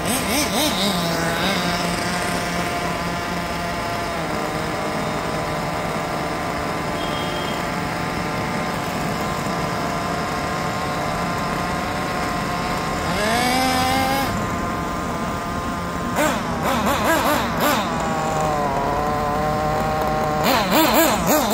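Small glow-fuel (nitro) engine of a 1/8-scale RC buggy idling with a steady buzz. It revs up briefly about 13 seconds in, then revs up and down several times over the last five seconds under throttle.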